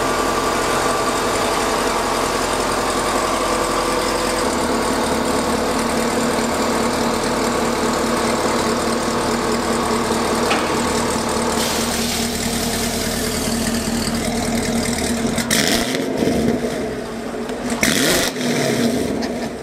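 Cat-deleted exhaust of a 2021 Chevrolet Camaro 1LE running at a steady idle as the car rolls out, with two short loud bursts near the end. The headers have just been rewelded, and it now sounds the way it is supposed to, with no exhaust leak.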